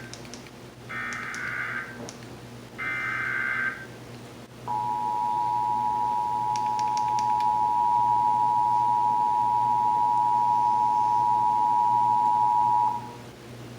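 Emergency Alert System test signalling: the end of one SAME header data burst, then two more harsh, buzzy digital bursts about a second apart, followed by the EAS two-tone attention signal (853 and 960 Hz together) held steadily for about eight seconds before it cuts off.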